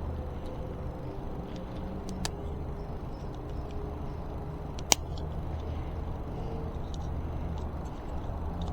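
Small clicks and taps of hand tools and e-bike brake parts being handled during a brake pad change, with one sharp click about five seconds in, over a steady low background hum.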